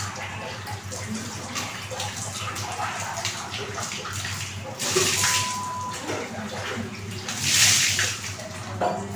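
Water splashing at a concrete wash tub as a stainless steel bowl is rinsed and emptied, with two louder pours of water about five seconds in and around eight seconds.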